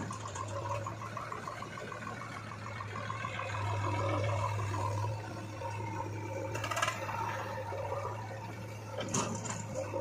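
Diesel engines of a backhoe loader and tractor running steadily at a low drone, swelling a little partway through. Two brief knocks come later on.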